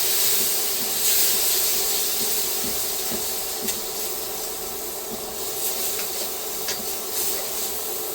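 Minced garlic sizzling in butter and oil in a frying pan: a steady hiss that slowly fades, with a few faint ticks.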